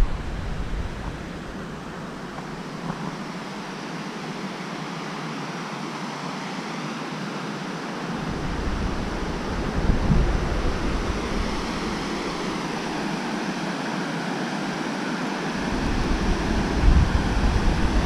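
Rushing water of the Sand River's rapids and falls, a steady hiss that grows louder near the end. Wind buffets the microphone with a low rumble about halfway through and again near the end.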